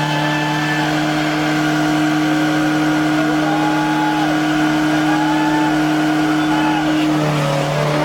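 A car engine held at steady high revs, a loud continuous drone that stays at one pitch, with fainter higher tones wavering above it.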